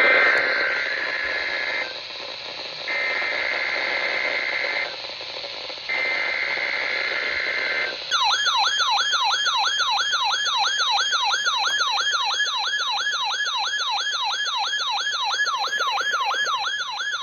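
NOAA Weather Radio Required Weekly Test alert: three bursts of screeching two-tone digital SAME header data, about two seconds each with a one-second gap between, over radio hiss. About eight seconds in, a warbling electronic alarm tone takes over, sweeping up and down about three times a second.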